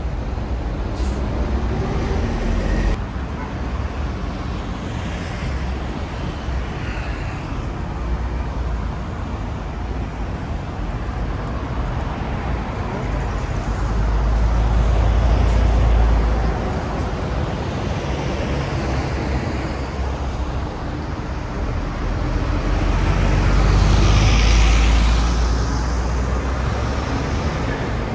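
Busy city-road traffic, with buses and cars going by in a steady rumble. It swells louder twice, about halfway through and again near the end, as vehicles pass close.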